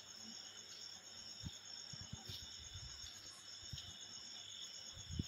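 Crickets trilling steadily at a high pitch, with a few faint low thumps.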